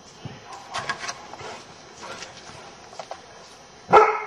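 A few soft scuffling noises, then a young flat-coated retriever gives one short, loud bark near the end, in play.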